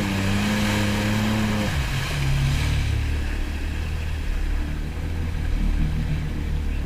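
Jet ski engine running, its pitch dropping about a second and a half in as the revs come down, then running lower and steady.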